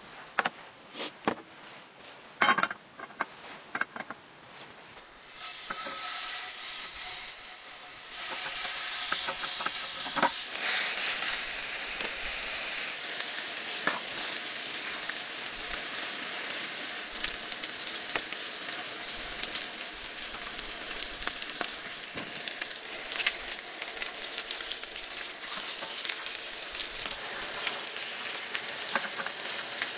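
A few clicks and knocks of cookware being handled, then a steady hiss starting about five seconds in. From about eight seconds in, pork belly sizzles steadily in a frying pan on a portable gas stove, with small crackles.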